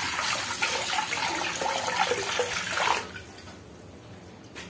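Water poured from a steel vessel into a pressure cooker, splashing onto the perforated steel stand inside. The steady pouring stops about three seconds in, and a light click follows near the end.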